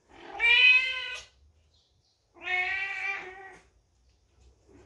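Mother cat meowing loudly: two long meows about two seconds apart, the first slightly higher in pitch.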